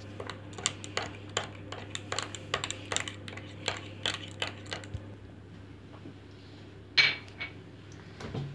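Metal teaspoon clinking against a glass bowl about three times a second while stirring yeast and sugar into warm water to dissolve it. The clinking stops about five seconds in, and a single louder, ringing clink follows about seven seconds in.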